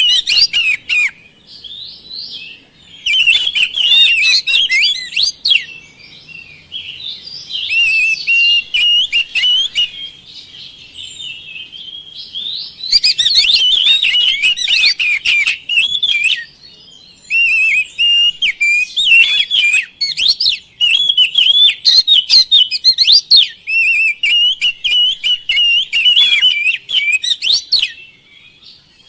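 Oriental magpie-robin (kacer) in full song: loud, fast, ever-changing whistled phrases in bursts broken by brief pauses. It is the continuous 'gacor' singing used as a lure to get other magpie-robins to answer.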